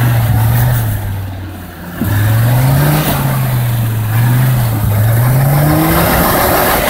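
An old Mercedes-Benz G-Wagen's engine labouring uphill in snow. The revs sag about a second in as it nearly bogs down, then pick up again and rise and fall as the driver works the throttle, climbing highest near the end while the wheels spin and throw snow.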